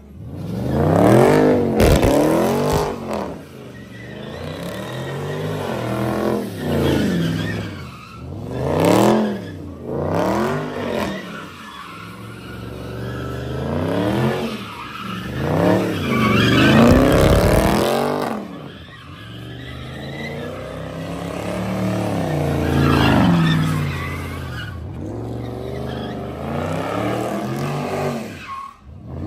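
A car doing donuts: its engine revs up and falls back again and again, about a dozen times, while the rear tyres skid and squeal on the asphalt.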